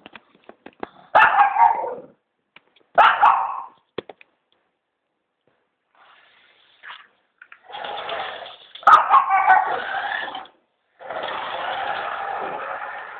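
Small long-haired dog barking at a remote-control toy car: two sharp barks near the start, then after a pause a longer run of barking, and near the end a steady whir as the toy car's electric motor drives it across the wooden floor.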